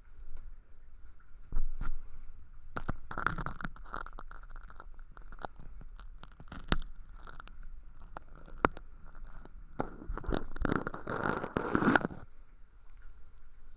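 Ear-cleaning tool scraping and crackling through thin, crispy sawdust-like fake earwax inside a transparent tube ear, close on a binaural microphone. Scattered sharp clicks and crunches, with a scraping spell about three seconds in and a louder, denser crunching spell from about ten to twelve seconds in, over a faint steady high hum.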